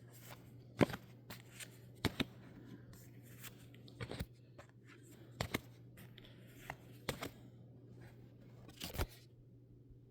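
Pokémon trading cards and a booster-pack foil wrapper being handled: a scattering of short, sharp snaps and rustles of card stock and foil, about eight in ten seconds.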